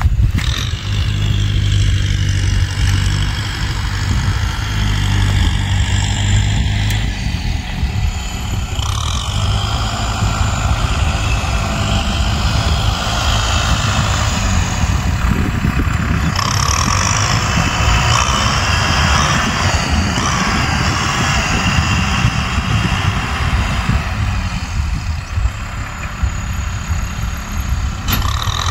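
Tractor engine running steadily as the tractor ploughs across a dry field, a continuous low drone with a hiss over it that grows stronger partway through.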